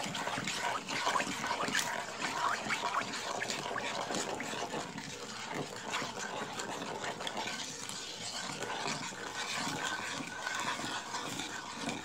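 Wooden spoon stirring a thick gochujang and chili-flake sauce in a non-stick wok: continuous wet stirring with small scrapes of the spoon against the pan.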